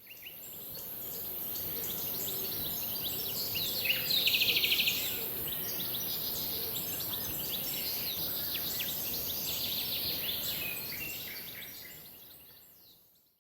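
Birdsong ambience: many small birds chirping and twittering over a steady high hiss, with a loud, fast-pulsed trill about four seconds in. It fades in at the start and fades out near the end.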